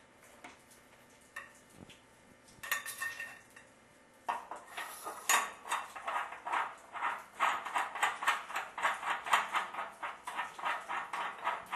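Light metallic clicks, then a fast, even run of metal-on-metal scraping strokes, about three a second, starting a few seconds in.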